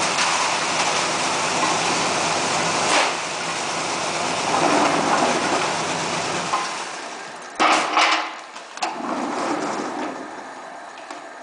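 De-icing rock salt pouring from a bagging machine's spout into a plastic sack: a steady rushing hiss with a knock about three seconds in, stopping after about six and a half seconds. A loud clunk follows about a second later, then quieter handling noise.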